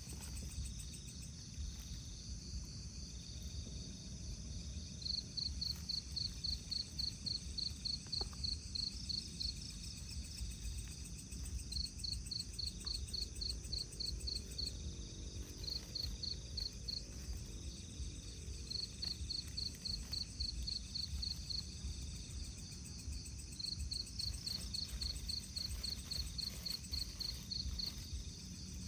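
Night insects calling: one chirps in runs of a few seconds, about four or five high chirps a second, over a steady high-pitched insect drone.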